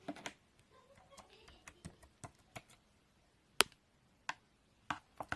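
Irregular sharp clicks and soft taps, a few to a second, the loudest click about two-thirds of the way through.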